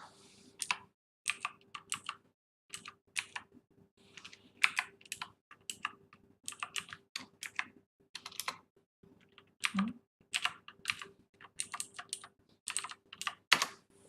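Typing on a computer keyboard: quick, irregular runs of key clicks with short pauses between them. A faint steady hum sits underneath.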